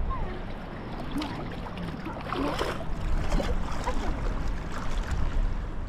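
Shallow seawater lapping and sloshing around a person wading, with a louder slosh about two and a half seconds in.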